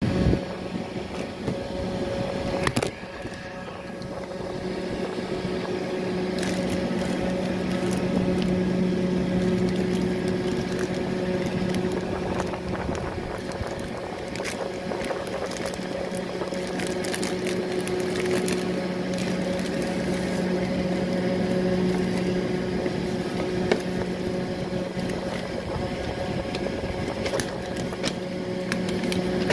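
A steady mechanical hum, like a small motor running, with the crinkling and rustling of a plastic courier mailer and a paper invoice being handled.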